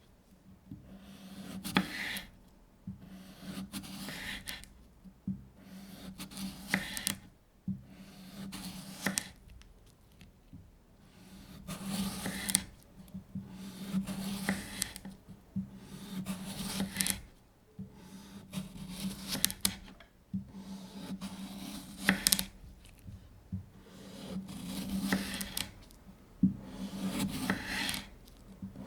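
A knife slicing a fresh cucumber on a cutting board, in short bursts about every two seconds, each with the rasp of the blade through the cucumber and sharp knocks of the knife on the board.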